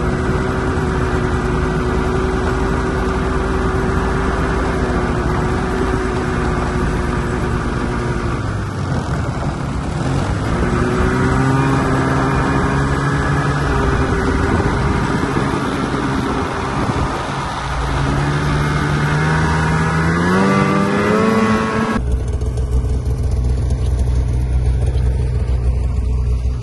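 Snowmobile engine running under way, heard from the rider's seat: a steady drone that drops briefly about eight seconds in, then climbs in pitch as the sled speeds up. After a sudden cut near the end, a lower steady engine hum takes over.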